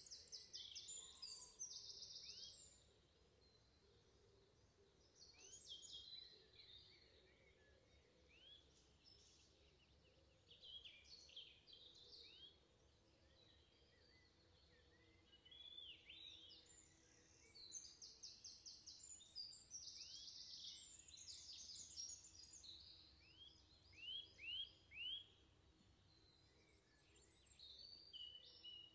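Faint songbird chorus: rapid high trills and short curved chirps in bouts with pauses between them, and a run of four quick repeated notes near the end.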